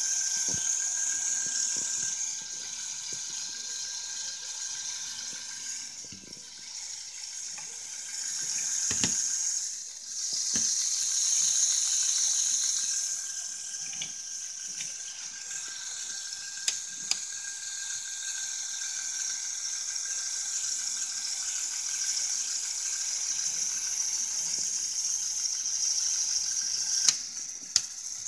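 Lego Technic bucket wheel excavator's electric motors and plastic gear trains running: a steady high whir with a constant whine, rising and falling in level, and a few sharp clicks.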